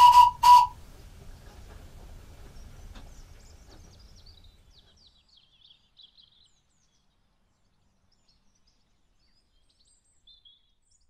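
A miniature steam locomotive's whistle gives two short toots of one steady pitch. Faint birdsong follows and fades out over the next few seconds.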